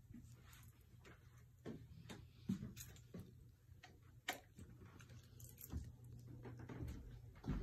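Faint scattered taps and knocks from footsteps and the handling of a phone being carried through a small bathroom and out its door, over a faint steady low hum.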